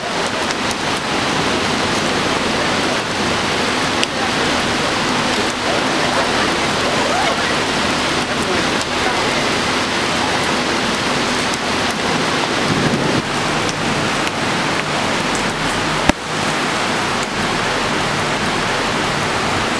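Heavy thunderstorm rain pouring steadily, a dense even hiss of the downpour on pavement and foliage. A single sharp click breaks it about three-quarters of the way through.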